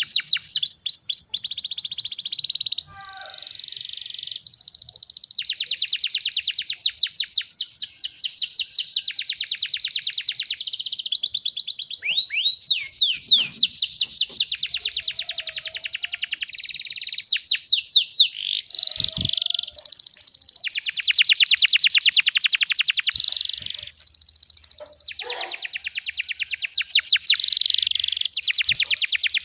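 Domestic canary singing a dense song of rapid trills: long runs of fast repeated high notes, broken by a few short pauses.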